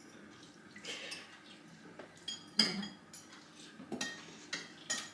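Spoons clinking and scraping against soup bowls as several people eat bakso, a scatter of light irregular clinks, with one louder knock a little over two and a half seconds in.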